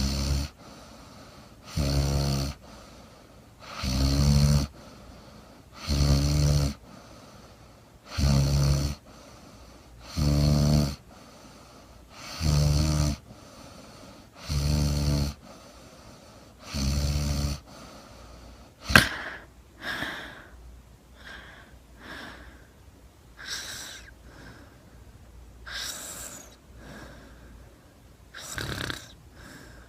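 A sleeping woman snoring, about one snore every two seconds. A little past halfway comes a sharp snort, the loudest sound, and the regular snoring gives way to softer, irregular breaths.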